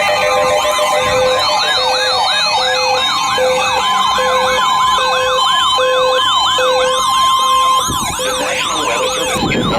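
Several electronic sirens sounding at once, fast rising-and-falling wails layered over a steady tone and a short beep that repeats about every two-thirds of a second. The layers thin out near the end.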